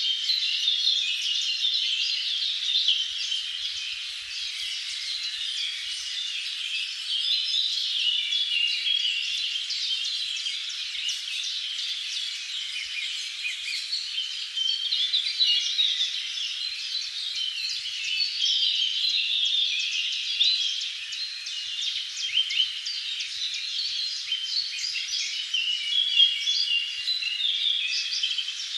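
Many small birds chirping and singing at once: a dense, continuous chorus of short, high calls and trills overlapping without a break.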